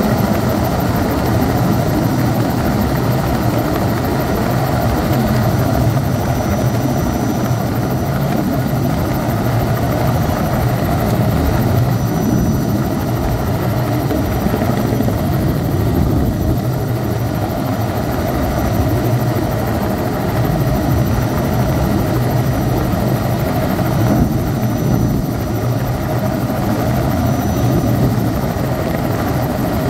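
Helicopter in flight, heard from inside the cabin: steady engine and rotor noise with a fast low thrum from the rotor blades.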